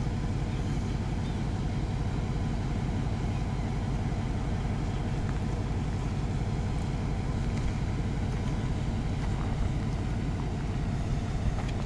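EMD SW1500 switcher locomotive's diesel engine running steadily as the locomotive slowly approaches.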